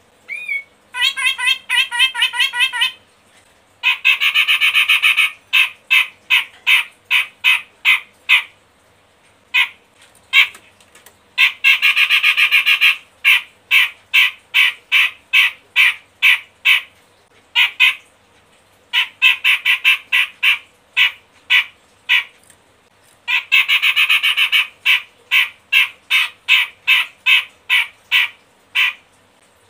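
Caged cucak jenggot Medan (a Sumatran grey-cheeked bulbul) calling hard: loud, harsh chattering notes in repeated bouts. Each bout opens with a fast rattle about a second long and runs on as separate notes about three a second, with brief pauses between bouts. This is the bird in full continuous song ('gacor'), the kind of call used as a lure to get other birds of its kind calling.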